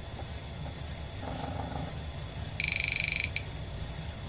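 A 40-track 5.25-inch floppy drive finishes copying a disk, with its motor humming low and steady. Midway through comes a brief, rapid, high buzz of closely spaced head steps lasting under a second, then a single click as the drive stops.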